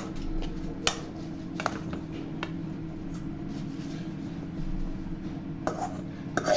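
LG convection microwave oven's fan running with a steady hum after preheating, with a few short light clicks.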